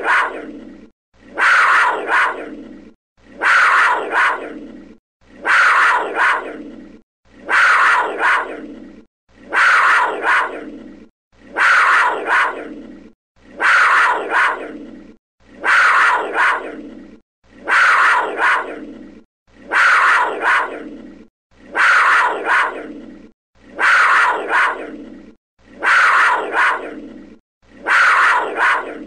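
A big cat's (panther's) snarling call played as a loop. The same sound, about a second and a half long, repeats about every two seconds; each one starts suddenly and fades out.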